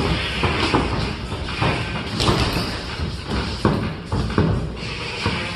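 Irregular thuds of boxing gloves landing punches, several a second in uneven bursts, over steady background noise.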